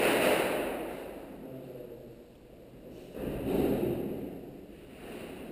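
Breathing close to the microphone: two loud breaths, one at the start and another about three seconds later, each fading out over about a second.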